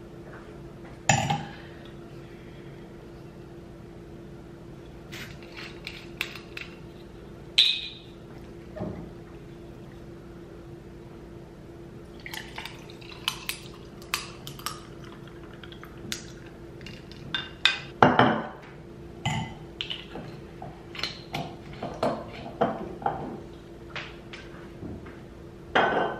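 A glass of rosé wine being poured over ice: scattered clinks of glass and ice and the handling of the bottle, with liquid pouring into a stemmed wine glass. A faint steady hum runs underneath.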